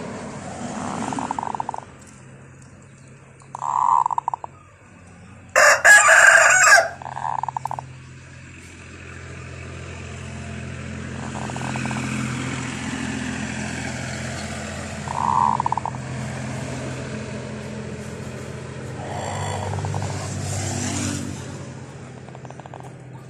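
Domestic rooster crowing loudly once, about a second long, roughly six seconds in, with shorter bird calls before and after it and a steady low hum underneath.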